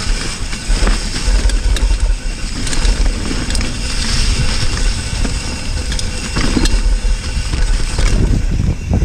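Cannondale hardtail mountain bike riding along a dirt trail: tyres rolling over the ground with many small clicks and rattles from the bike over bumps, under a steady low rumble on the helmet or bike-mounted camera's microphone.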